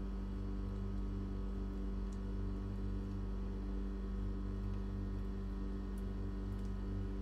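Steady low electrical hum with a buzzy edge, unchanging throughout.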